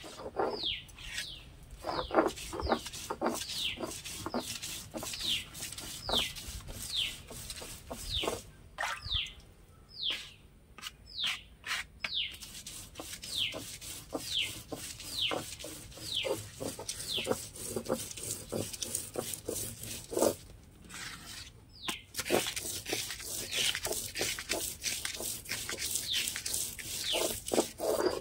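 A stone roller is worked back and forth over a flat grinding stone (ammikkallu), crushing wet coconut, chilli and garlic with a gritty scraping and knocking at each stroke. A bird repeats a short falling chirp over and over.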